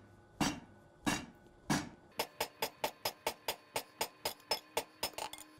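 Hand hammer blows on a glowing 52100 steel round bar on an anvil, forging a point. Three separate blows come first, then a fast even run of lighter blows at about five a second with the anvil ringing.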